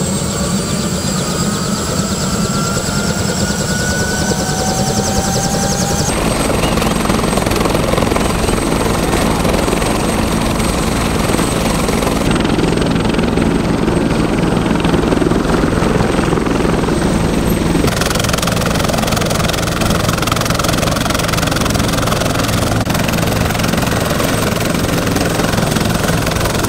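Helicopter running on the ground with its four-blade main rotor turning: a steady, loud rotor and engine drone. A turbine whine climbs slowly in pitch over the first few seconds.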